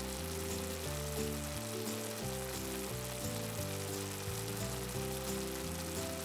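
A steak sizzling in hot fat in an uncoated cast-iron frying pan, a steady crackling hiss. Background music plays under it, with held chords that change about every second.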